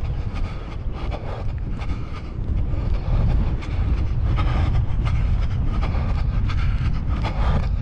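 Wind buffeting the microphone as a heavy, steady low rumble, over the regular beat of a runner's footfalls on a grass track.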